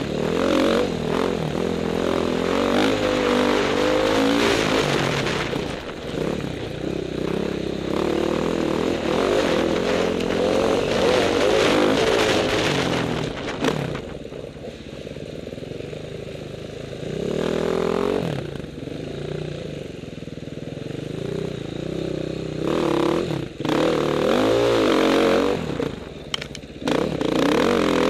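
Dirt bike engine revving up and down as the rider works the throttle on a rough trail, its note rising and falling. Twice in the middle it eases off to a quieter, lower running before picking up again.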